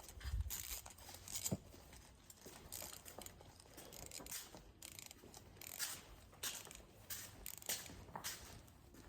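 Faint, irregular rustling and light knocks of things being handled, with a low thump about half a second in.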